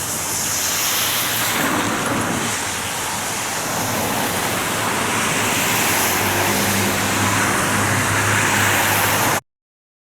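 Steady rushing noise of a passing vehicle, slowly growing louder, with a low hum coming in after about six seconds; it cuts off suddenly just before the end.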